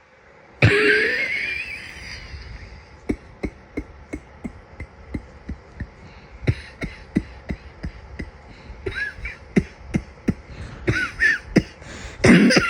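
A person with a summer cold coughing: one loud cough a little after the start, then a long string of short, quick coughs, about three a second, with a louder cough near the end.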